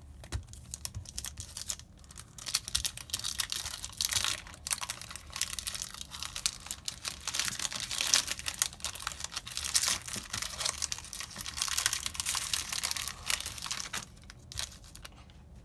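Foil Yu-Gi-Oh! booster pack wrapper being torn open and crinkled by hand: a dense, irregular crackle that thins out near the end.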